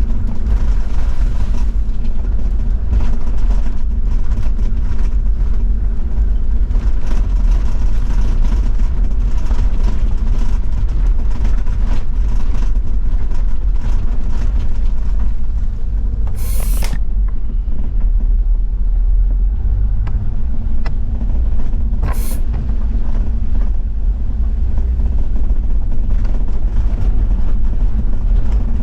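Toyota Land Cruiser 70-series diesel driving on an unpaved forest road, with a steady low engine and road drone. Two short hisses break in, one about two-thirds of the way through and a shorter one some six seconds later.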